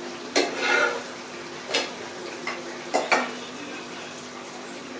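Metal ladle scraping and clinking against cookware: a scrape about half a second in, then sharp clinks near two and three seconds, over a faint steady hum.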